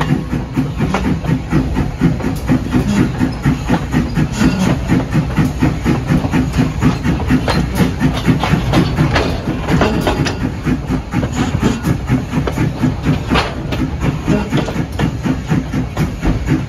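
Steam train hauled by New Hope Railroad locomotive No. 40, running with an even beat of about three a second under a steady hiss.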